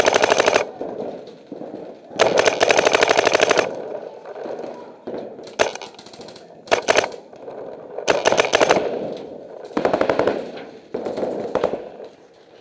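Paintball guns firing rapid bursts, about ten shots a second, in repeated strings from a fraction of a second to about a second and a half long, with short pauses between.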